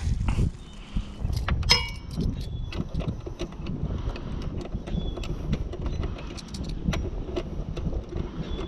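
Metal clicks and clinks of a hand wrench turning a Torx bit as bolts are driven in to secure a motorcycle's passenger footpeg bracket, in irregular bursts over a low rumble.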